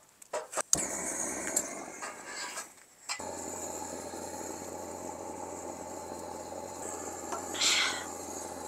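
A few knocks of split firewood being set into a steel mini brazier, then a handheld butane gas torch running with a steady rushing hiss as it lights the wood. A brief louder hiss comes near the end.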